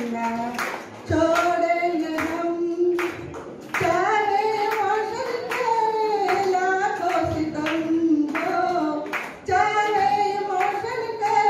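A woman singing a slow melody into a microphone, with steady hand claps keeping time about twice a second.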